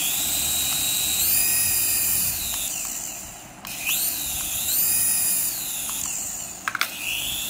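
Small electric rotor motors of a toy coaxial RC helicopter whining as it is held in the hand. The motors are throttled up twice, each time rising in pitch, holding, then falling back, with a couple of clicks near the end.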